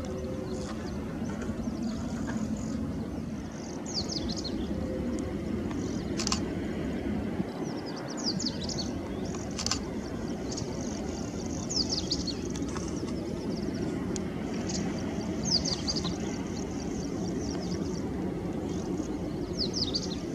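Steady low rumble of a Boeing 777's GE90 jet engines at taxi power. A bird's short falling chirps come in clusters every few seconds, and there are two sharp ticks.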